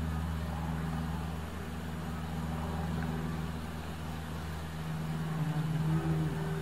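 Low, steady mechanical hum of a running engine or motor; its tone shifts slightly about five seconds in.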